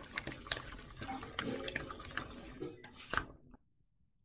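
Chopsticks stirring a wet chopped eggplant and green pepper filling in a stainless steel bowl, mixing in salt: a wet, crackly churning with sharper clicks scattered through it, stopping about three and a half seconds in.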